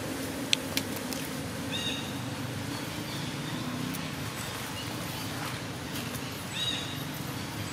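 A few short, high animal chirps over steady outdoor background noise, with two sharp clicks about half a second in.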